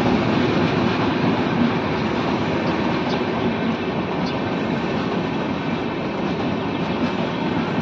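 Indian Railways express passenger coaches rolling past: a steady rumble of wheels on rail, with a few faint clicks.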